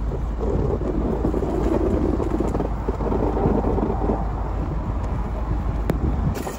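A 1999 Chevy Suburban running under load as its straight plow blade pushes deep snow: a steady, low noise of engine and moving snow.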